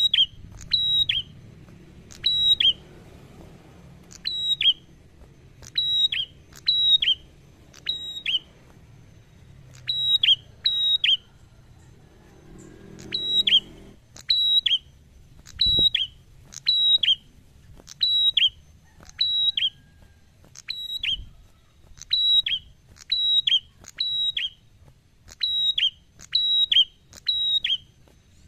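A prenjak songbird repeating a sharp, high, whistled call, mostly in quick pairs, about two calls a second, with a few seconds' pause about halfway through. A single dull thump comes just after the pause.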